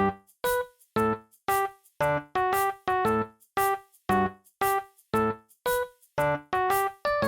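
Background music: a piano-like keyboard playing short, detached chords at a steady pace of about two a second.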